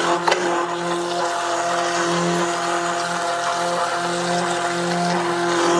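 Electric blender motor running steadily as it churns soap that has set into a jelly, breaking the gel up into liquid laundry soap.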